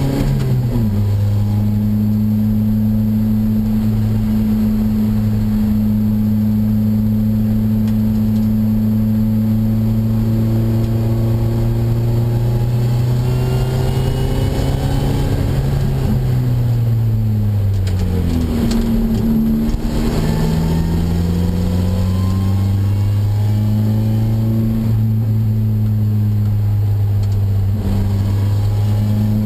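Opel Speedster engine heard from inside the cockpit while driving at speed, a loud steady note that climbs slowly for long stretches. About two-thirds of the way through its pitch falls away for a couple of seconds, then rises quickly and settles again.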